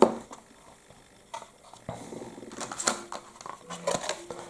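Light, scattered clicks and taps of thin clear vacuformed plastic and small resin model parts being handled and set down on a cutting mat.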